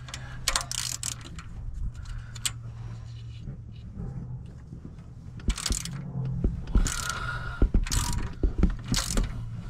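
Hand socket ratchet clicking in short spells and metal tools clinking while bolts are worked loose, starting about halfway through. A low steady hum runs underneath in the first half.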